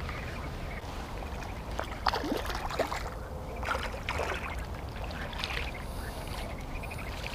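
Water splashing at the river's edge with a few short knocks and scrapes about two to four seconds in, as a small hooked catfish is brought in.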